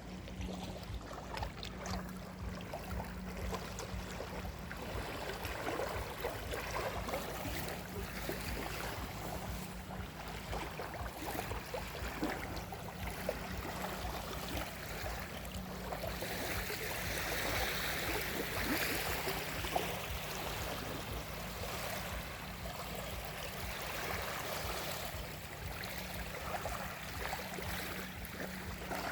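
Small waves of the Gulf of Riga lapping and splashing irregularly at the shore, with a wave washing in more strongly about two thirds of the way through. A steady low hum runs underneath.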